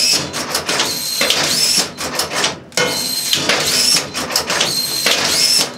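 EAM Mosca ROMP-4 automatic arch strapping machine strapping a box with half-inch strap, twice in a row: each cycle is a run of mechanical clatter with a rising motor whine, with a short dip between the two about halfway through.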